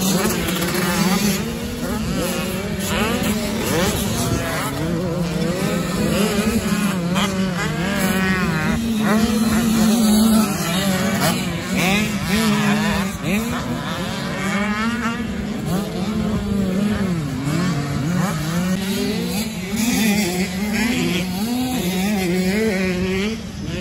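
Several small supermini-class motocross bikes racing round a dirt track, their engines revving up and down through the gears and overlapping with one another.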